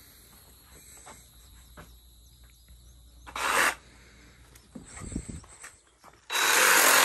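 Crickets chirring steadily in the background, broken by two loud rasping bursts from a cordless reciprocating saw cutting through a hog carcass. The first is short, about three and a half seconds in; the second starts about six seconds in and runs on.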